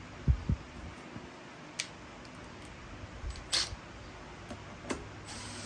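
Two low knocks near the start, then a few scattered sharp clicks: hand work on a string trimmer's parts and lines during reassembly, over a faint steady hum.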